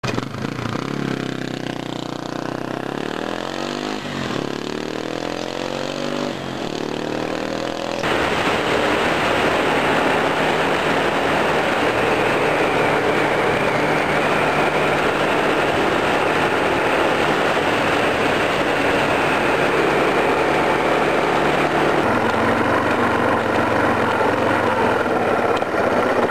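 Motorcycle riding at road speed: loud, steady wind rush mixed with the engine running. Before it, for the first several seconds, there is a quieter sound whose pitch slides up and down.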